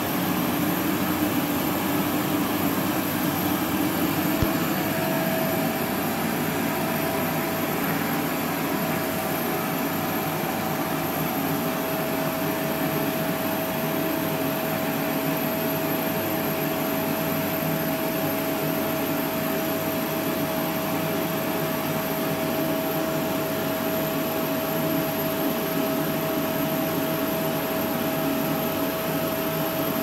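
Vacuum cleaner running steadily, its bare metal wand sucking at chunks of raw meat, one of which plugs the wand's open end. A steady whistle joins the motor noise from about eight seconds in.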